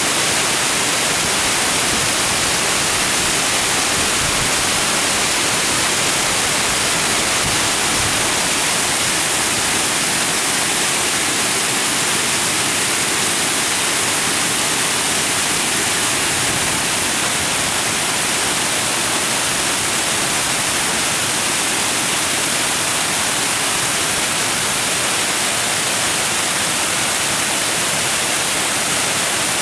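Water pouring over a weir and churning into foam below: a steady, unbroken rush.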